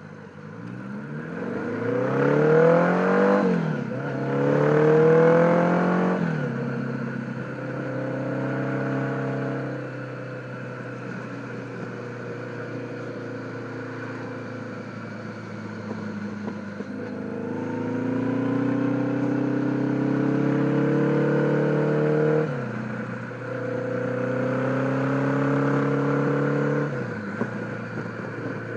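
1976 Honda Gold Wing's flat-four engine accelerating through the gears from a pull-away. Its note climbs in each gear and drops sharply at each shift, twice early on and twice more near the end, and holds steady at cruising speed in between. The old mufflers are a little bit on the loud side.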